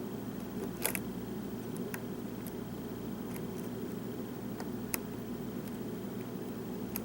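Hook pick working the pins of a Tessa-core pin-tumbler lock under tension: a handful of small, sharp metallic clicks, the clearest about a second in and near five seconds, over a steady low hum.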